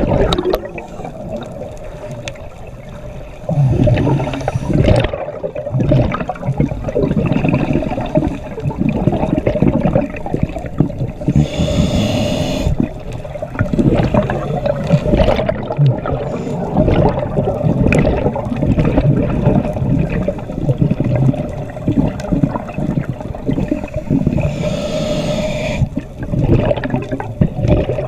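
Underwater sound on a scuba dive: muffled churning of water and bubbles against the camera, with a steady hum, and two louder hissing rushes of exhaled bubbles, the first about twelve seconds in and the second near the end.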